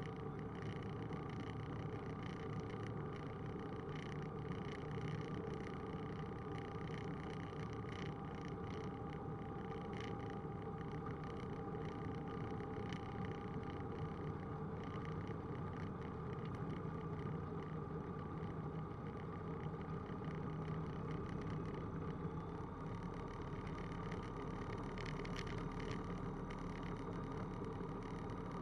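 Roland Aircraft Z602 ultralight's propeller engine running steadily at low taxi power, heard from inside the cockpit.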